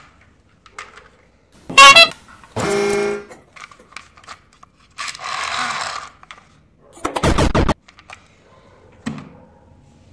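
A string of short, separate sound effects: a loud honking tone about two seconds in, followed by a second horn-like tone, a hiss around five seconds, a rapid rattle near seven seconds, and a soft knock near nine seconds.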